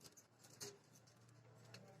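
Near silence: faint room tone with a couple of soft, short clicks.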